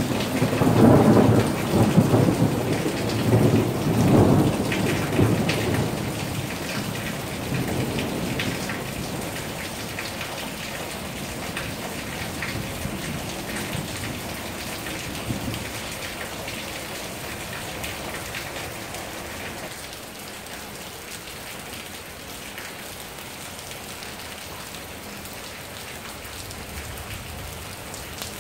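A long roll of thunder, loudest at the start and dying away over the first several seconds. Under and after it, steady rain falls on wet pavement.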